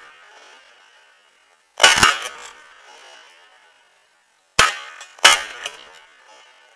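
Three shotgun shots: one about two seconds in, then two more in quick succession, well under a second apart, near the five-second mark. Each shot trails off in an echo over about a second.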